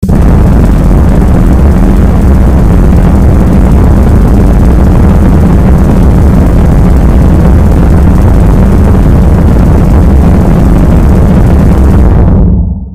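Harsh noise music (gorenoise): a steady wall of distorted noise, heaviest in the bass. It starts abruptly and dies away quickly near the end.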